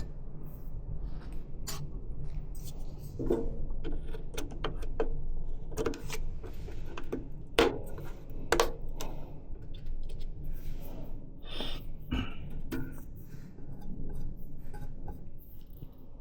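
Scattered plastic and metal clicks and knocks of RAM sticks being pulled out and reseated in the motherboard's memory slots, over a steady low hum.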